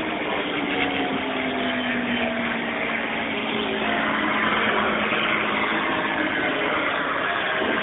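P-51 Mustang's Merlin V-12 engine droning overhead as the fighter flies past, its tone falling slowly in pitch over the first few seconds, over a steady rushing hiss.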